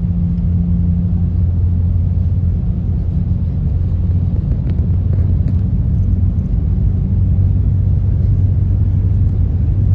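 Cabin noise of a JR Central L0 series superconducting maglev accelerating past about 280 to 300 km/h while running levitated: a steady low rumble with a deep hum, growing slightly louder.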